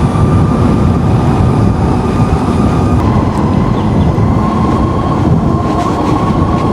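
Wind rumbling on the microphone of a moving electric scooter, with a thin steady whine held throughout.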